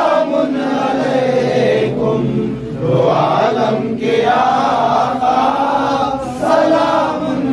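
Men's voices chanting an Urdu salaam together, drawn-out sung phrases with short breaks between them.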